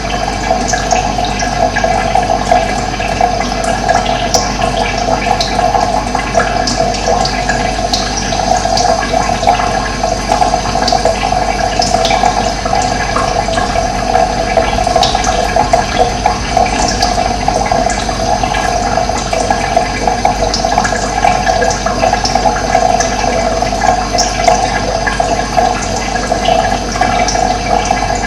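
Steady rush of running water, with short high bird chirps here and there over it.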